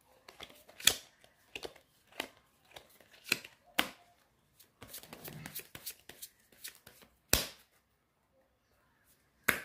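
A deck of playing cards being shuffled in the hands: an irregular string of soft card slaps and clicks with several sharper snaps. The sound stops for about two seconds near the end before one last snap.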